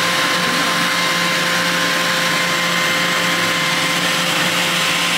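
Laser hair-removal machine running with its cooling system on: a steady whir of fan noise with a constant high whine.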